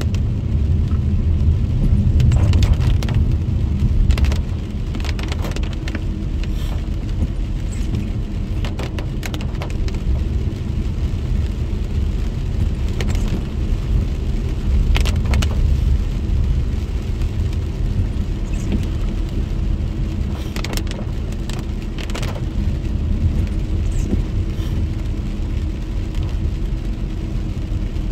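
Steady low rumble of a car driving on a wet road, heard from inside the cabin, with scattered sharp ticks over it.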